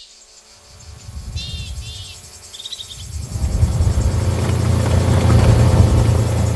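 Sound-designed dive effect: a deep rushing whoosh builds from about three seconds in and holds loud to the end. Underneath is a steady high buzz of cicadas or crickets, and a few short bird-like chirps come before the whoosh.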